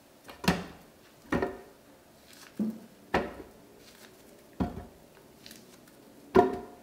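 Chunks of banana dropped one at a time into an empty plastic blender pitcher, each landing with a dull thud that rings briefly in the jar. There are about six thuds, one to two seconds apart, and the loudest comes near the end.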